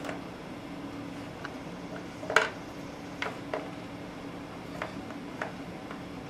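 Small plastic toys knocking and clacking against a baby walker's plastic tray as a baby handles them: one sharp clack about two and a half seconds in, then several lighter taps.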